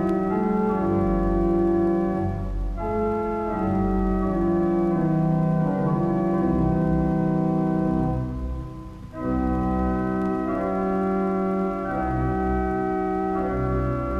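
Organ music: held chords that change every second or two, with a short break about nine seconds in.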